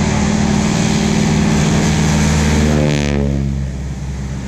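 North American T-6 Texan's Pratt & Whitney R-1340 radial engine and propeller at high power as the plane passes close by. The pitch drops about three seconds in as it goes past, and the sound then gets somewhat quieter.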